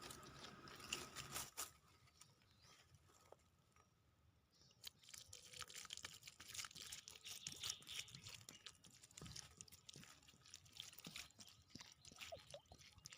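Near silence, then faint scattered crackling and rustling from about five seconds in.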